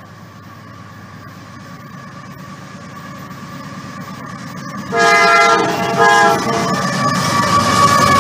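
A CSX diesel freight train approaches, its rumble growing steadily louder, and about five seconds in the lead locomotive sounds its horn chord twice, a longer blast then a short one. The locomotives and loaded hopper cars then rumble past close by.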